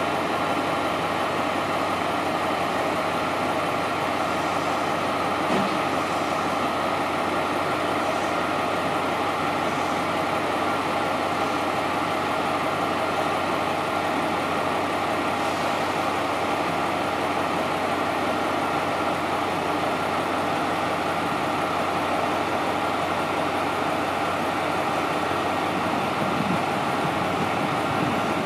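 KiHa 47 diesel railcar's engine idling steadily while the train stands at the platform.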